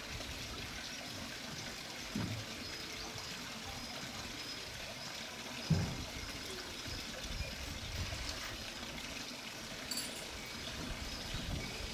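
Steady rush of running water, with a soft low thump about two seconds in and a louder one near six seconds.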